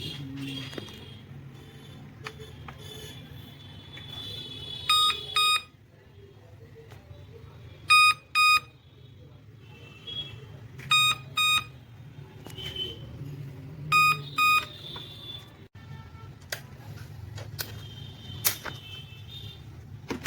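Laptop error beeps: two short beeps in quick succession, repeated four times about three seconds apart, a beep code that signals a fault in the laptop.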